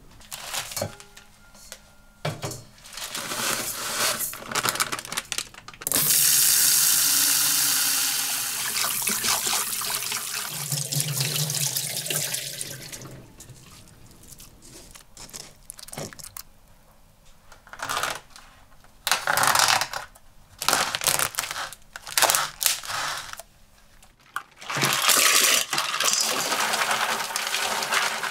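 Kitchen tap running into a stainless steel sink for several seconds, with knocks and clinks of bowls and a strainer before and after. Near the end the tap runs again while mussels are rubbed together in a steel bowl to clean them.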